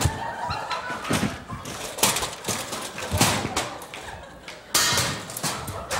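Sharp knocks and thumps about once a second, then a louder bang near the end: the shot of a Hilti DX 450 powder-actuated nailer driving a nail into a concrete block.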